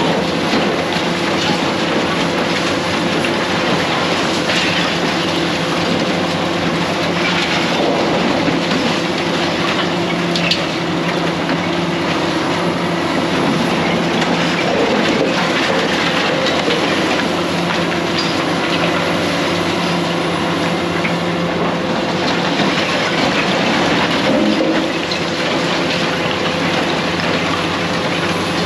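Heavy demolition machinery running steadily, its engine tones held under a continuous grinding and scraping of metal and debris, with scattered clanks and crunches.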